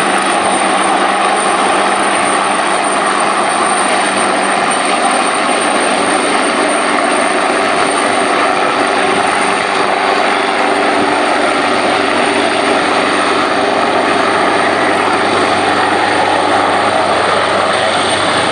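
Coastguard search-and-rescue helicopter hovering low over the sea, its rotor and engines making a loud, steady noise.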